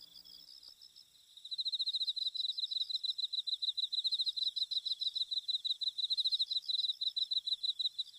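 Crickets chirping in a fast, evenly pulsing high trill, starting about a second and a half in.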